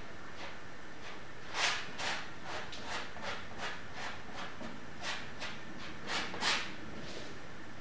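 Metal palette knife scraping acrylic paint across a stretched canvas in a run of short strokes, about two or three a second, starting about a second and a half in and stopping near the end, over a steady faint hiss.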